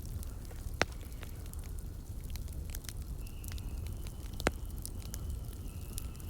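Burning firewood crackling, with a steady low rumble and scattered small snaps. Two sharp pops stand out, about a second in and about four and a half seconds in, and a faint thin whistle joins from about halfway.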